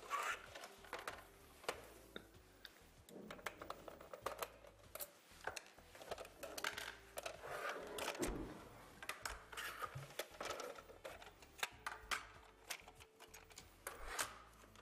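Faint scattered clicks and light clatter of a computer CD/DVD drive being taken apart by hand, its sheet-metal cover and plastic parts being handled.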